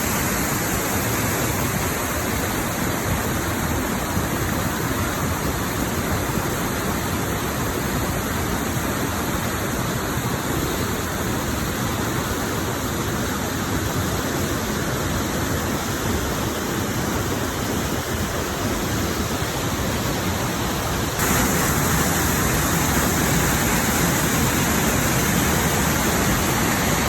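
Water rushing steadily, a waterfall or fast stream flowing over rocks, as an even roar with no breaks. It gets a step louder and brighter about 21 seconds in.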